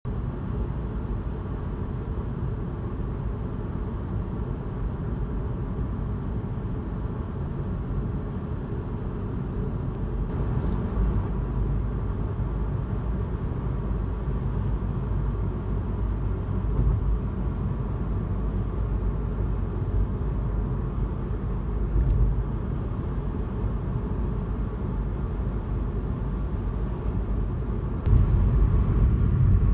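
Steady low rumble of a car's road and engine noise heard from inside the moving cabin, getting louder near the end.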